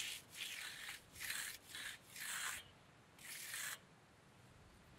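Steel hand trowel scraping over a concrete slab whose surface has started to dry, in five separate strokes and then stopping.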